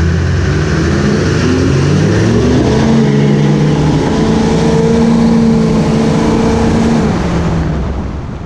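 Diesel pickup truck engine under hard acceleration, its pitch climbing in steps as it shifts, then holding high before letting off near the end and fading out.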